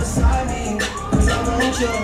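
Loud dance music with heavy bass beats and a singing voice holding long notes.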